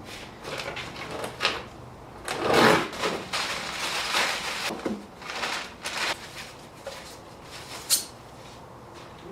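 Handling and unpacking a parcel: cardboard and packing material rustling and scraping in irregular bursts, with a few knocks and a sharp click near the end.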